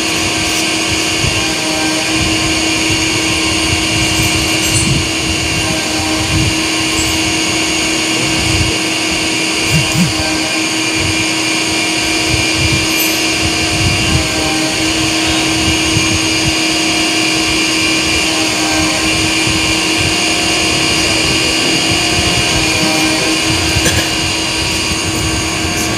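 Steady machine hum of a powered-on CNC lathe standing with its spindle stopped. It has a fixed low tone, several high whines and an uneven low rumble underneath.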